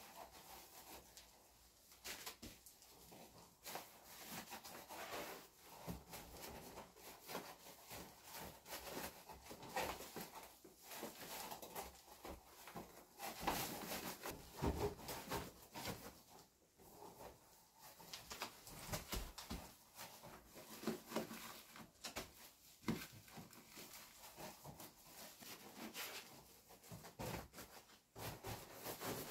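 Irregular rustling and crinkling of foil-faced insulation sheets being handled and pressed flat by gloved hands, with small knocks and clicks.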